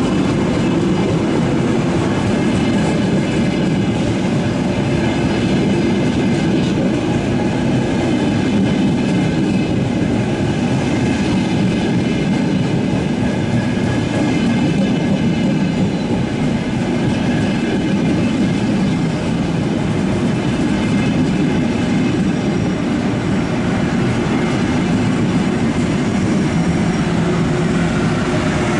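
A long train passing at close range, its wheels running over the track at a steady, loud level.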